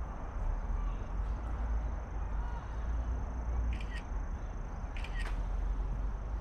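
Outdoor ambience with a steady low rumble and a faint, steady high tone. Two short, high chirps sound about a second and a half apart, past the middle.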